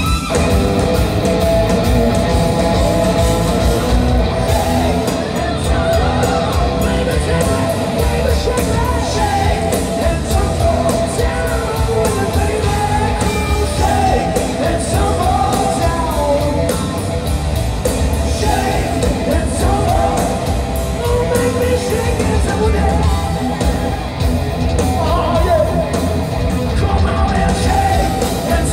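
Live rock band playing loud, with electric guitars, bass and drums under a singer's wailing vocal line, heard from within the crowd in a large hall.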